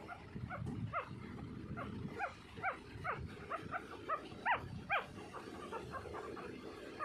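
Eleven-day-old golden retriever puppies squeaking and whimpering: a quick string of short, high squeals, about two or three a second, loudest a little past the middle.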